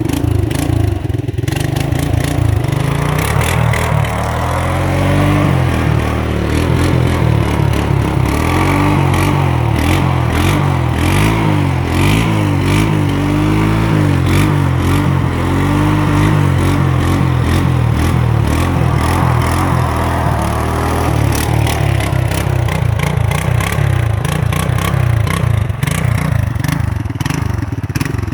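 ATV engine running under throttle, its note rising and falling again and again as it revs up and eases off, with scattered clattering.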